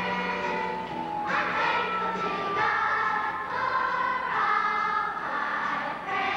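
Children's choir singing together, holding long notes that move from pitch to pitch.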